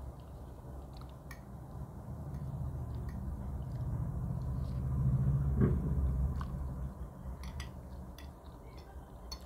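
A person eating spaghetti close to the microphone: wet chewing that swells to a slurp of noodles about halfway through, with small clicks of a metal fork against the plate.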